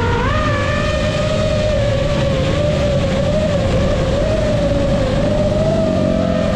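FPV drone motors and propellers whining at a steady pitch that wavers slowly up and down, over a constant low rushing noise.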